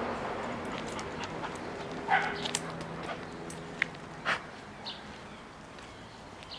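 Airedale terrier whimpering and giving a short cry about two seconds in, over the fading noise of a passing car. A few sharp clicks follow.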